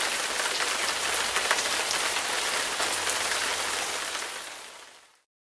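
Floodwater rushing over a submerged low-level bridge: a steady splashing hiss of white water, fading out near the end.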